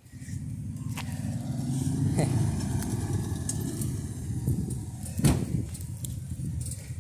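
A road vehicle driving past: a low rumble that swells about two seconds in and slowly fades. A sharp knock comes about five seconds in.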